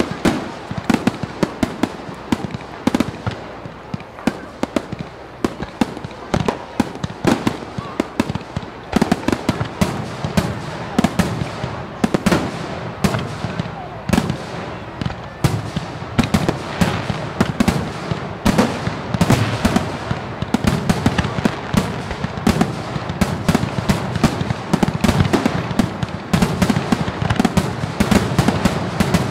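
Fireworks display: a continuous barrage of bangs and crackling, several reports a second without let-up, over a low rumble.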